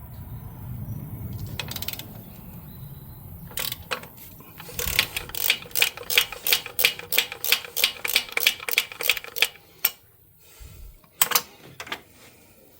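Icon 3/8-inch drive locking flex-head ratchet being cycled, its pawl clicking rapidly and evenly at about four to five clicks a second for several seconds, with a few single clicks before and after.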